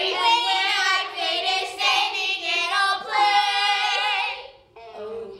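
Girls singing loudly together, with a long held note from about three seconds in that breaks off shortly before the end, then lower voices come back in.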